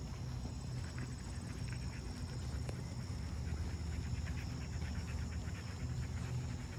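Siberian husky panting with quick, rhythmic breaths as it walks close by, over a steady low rumble.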